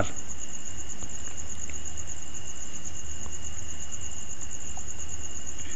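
Steady high-pitched insect trill, pulsing quickly and evenly, over a low background hum.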